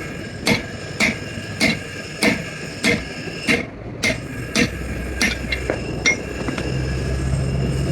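Hammer striking metal in a steady rhythm, about nine ringing blows roughly 0.6 s apart. The blows stop about five seconds in, and a low steady hum comes in near the end.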